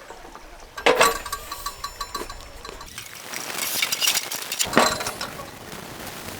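Metal clank of a folding portable gas stove being handled about a second in, followed by lighter clinks, then a rushing hiss that builds and a second clank near the end.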